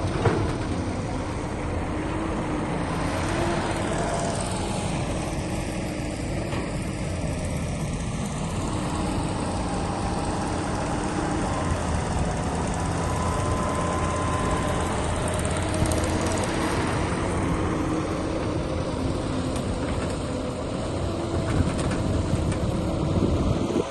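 Heavy machinery's diesel engine running steadily, a continuous drone with a few held tones that shift slowly in pitch.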